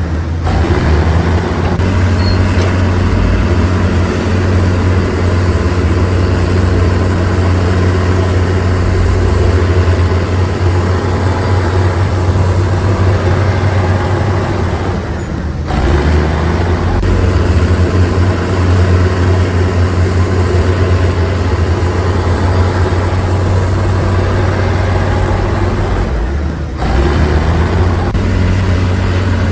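Heavy diesel engine of road-construction machinery running steadily under load, with a deep hum; the sound breaks off and changes abruptly about halfway through and again near the end.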